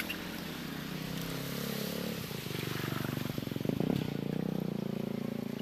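A small engine running steadily, with an even pulsing drone that grows a little louder about two seconds in.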